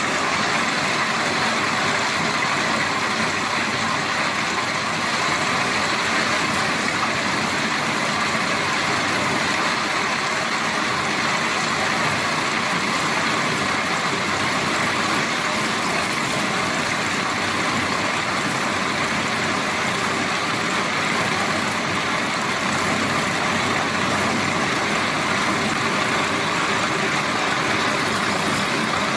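Steady engine noise of a running machine, even and unchanging throughout.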